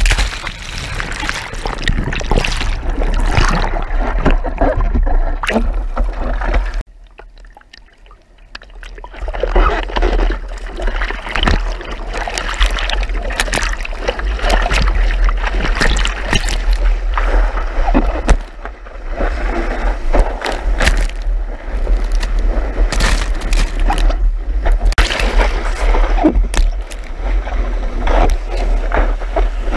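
Sea water splashing and rushing over a surfboard-mounted action camera as a surfer paddles into and rides a wave. About seven seconds in the sound turns muffled and much quieter for about two seconds, then the splashing returns.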